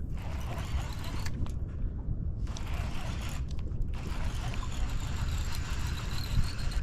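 Baitcasting reel being cranked fast while fighting a hooked smallmouth bass, a fine mechanical whirring and clicking over a steady low rumble.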